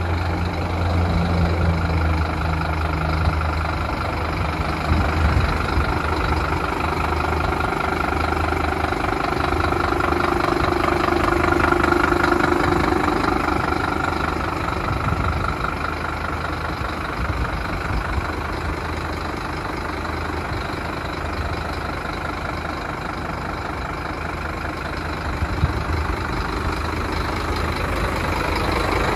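A 2009 Scania G270 truck's nine-litre five-cylinder diesel engine idling steadily.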